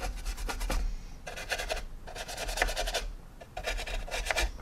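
A paintbrush scrubbed quickly back and forth on the plastic skin of a model kit, blending oil-paint weathering into the surface. The brushing comes in three short spells of rapid strokes with brief pauses between.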